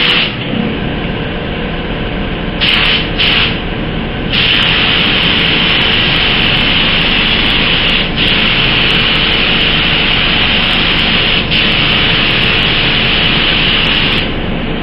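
Compressed-air gravity-feed spray gun hissing as it sprays straight thinners onto masking paper in a fan-pattern test. Two short trigger bursts are followed by about ten seconds of steady spraying that dips briefly twice, over a constant low hum.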